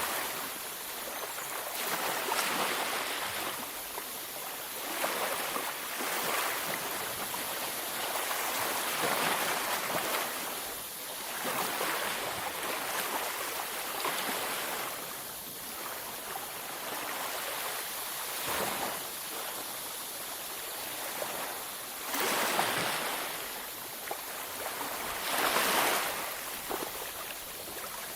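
Ocean waves washing onto a beach: a continuous hiss of surf that swells and eases every few seconds as each wave breaks and runs up.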